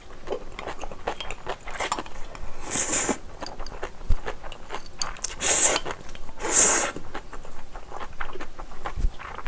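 Close-miked eating sounds of a person having spicy instant ramyeon: three short slurps, about three, five and a half and six and a half seconds in, with wet chewing and mouth clicks between.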